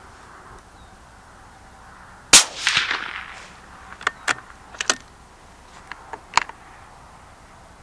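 A single suppressed rifle shot about two seconds in, from a Savage LRPV bolt-action rifle in .204 Ruger, with a short trailing echo. It is followed by a run of sharp metallic clicks as the bolt is worked.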